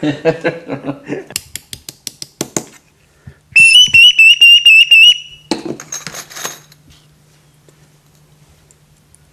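A quick run of about ten light metal taps, then a shrill, warbling whistle from a hand-made metal bird call (appeau) lasting about a second and a half, followed by a shorter, rougher sound.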